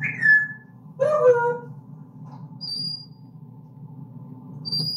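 Pet parrot squeaking and whistling. A falling squeak comes at the start, a few quick calls follow about a second in, and two short high whistles come later, over a steady low hum.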